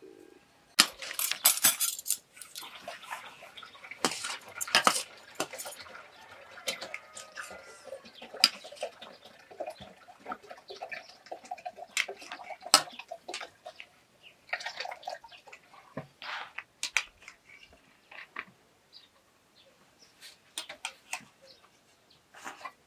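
Spoons, metal trays and plates clinking and clattering in irregular sharp knocks as food is dished up and dishes are set down on a floor cloth.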